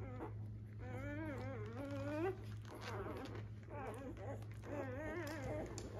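Newborn Labrador puppies whimpering and squealing, a few long, wavering, high calls one after another, over a steady low hum.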